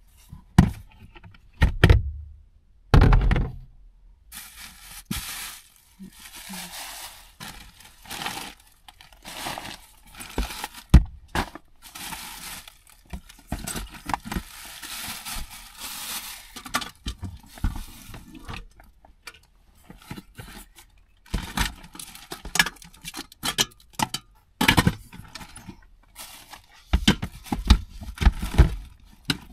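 Kitchen items being handled and packed into a clear plastic storage bin: irregular knocks, clunks and scrapes of a pot, lid and bottles against hard plastic, with stretches of rustling.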